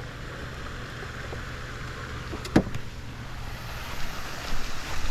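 Baitcasting reel cranked to wind in the line, a steady geared whir, with a single sharp click about two and a half seconds in.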